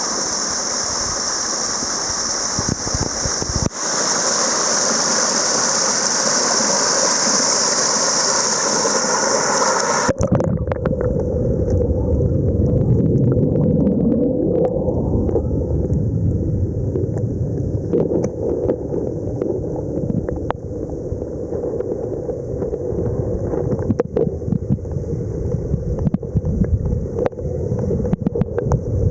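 Waterfall: rushing water, a steady bright hiss for the first ten seconds. After a sudden change about ten seconds in, it becomes a deeper rumbling rush with scattered knocks.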